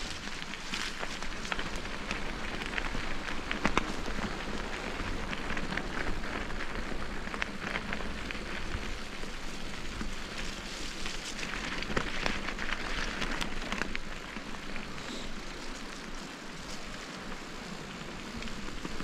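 Bicycle tyres rolling over a winter forest track: a steady crackling hiss full of small clicks and snaps, easing off a little about three-quarters of the way through.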